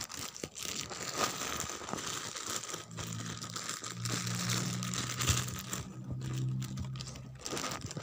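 Plastic wrapping crinkling and rustling as it is handled and pulled off a new toy. A low steady hum runs underneath from about three seconds in until near the end.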